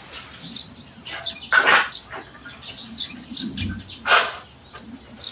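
Small birds chirping repeatedly in short high notes, with two louder short noisy sounds about one and a half and four seconds in.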